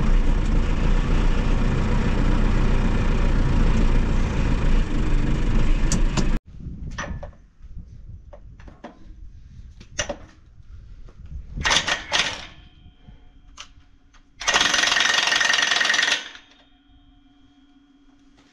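Impact wrench hammering steadily on the truck's spring U-bolt nuts, stopping suddenly after about six seconds. A few metallic clinks and knocks follow, then a second burst of hammering about a second and a half long near the end.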